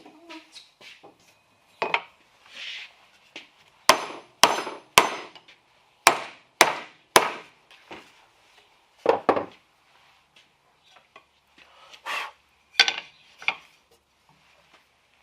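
Sharp blows of a hand tool striking wood: two runs of three strikes about half a second apart, followed by a few scattered, softer knocks.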